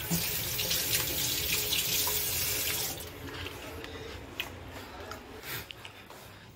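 Water running from a washbasin tap onto a hand for about three seconds, then shut off suddenly. A few light clicks and knocks follow.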